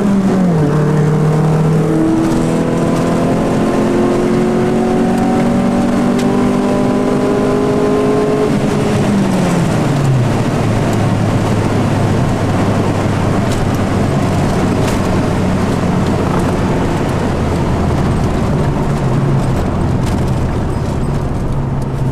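A car's engine heard from inside the cabin, accelerating hard through the gears. Its pitch climbs steadily, drops at a gear change just after the start and again about nine seconds in, then holds fairly level under growing wind and road noise.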